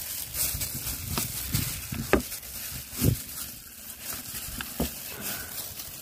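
Gloved hands kneading a paste of minced snakeskin gourami and pork in a plastic bowl: irregular soft pats and crinkles from the wet mixture and loose plastic gloves, with a few sharper clicks.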